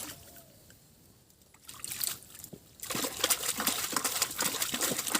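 Water splashing and sloshing, starting about three seconds in after a quiet stretch and going on as a busy, churning run of splashes.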